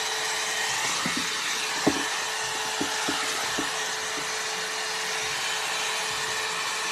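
Hot-air blow-dry brush running: a steady rush of blown air over an even motor hum, with a few light clicks and knocks from the round brush being worked through the hair.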